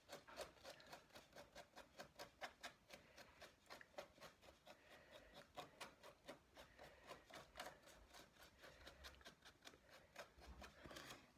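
Paintbrush being scrubbed over a rough papier-mâché rock surface, working acrylic paint into it: faint, quick strokes, about five a second.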